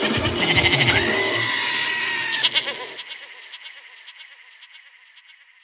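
Closing music ends: the drums stop about a second in, and a bleating, goat-like sound and a held high note ring on and fade away over the next few seconds.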